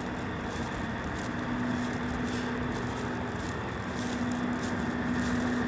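Diesel railcar engine idling: a steady hum with one held low tone, growing slightly louder toward the end.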